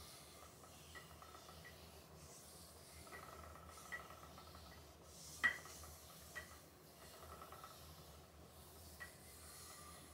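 Faint rustle of wool yarn being pulled off a spinning wheel bobbin and wound around a wooden niddy noddy, with a few light clicks; the sharpest is about halfway through.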